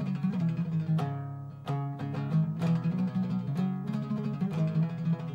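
Instrumental music played on a plucked string instrument: quick plucked notes over sustained low notes.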